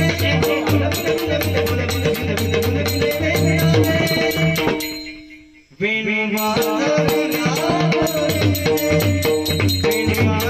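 Bhajan music with pakhawaj drum and fast, steady metallic percussion beats over held tones. The music fades out about five seconds in and starts again abruptly a second later.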